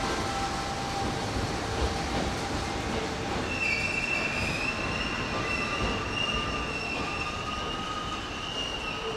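Hanshin Railway electric train running slowly through the station over a steady rumble of wheels on rail. About three and a half seconds in, a high, slightly wavering wheel squeal sets in and continues.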